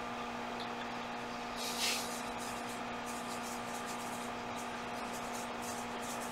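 Steady electrical hum with several fixed pitches over a constant hiss, with a brief breathy hiss a little under two seconds in.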